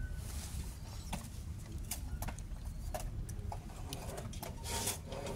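Handling noise from a Zhiyun Crane 3S camera gimbal: scattered light clicks and knocks as its arms and mounting plates are turned and moved by hand, over a steady low rumble, with a short rustle about five seconds in.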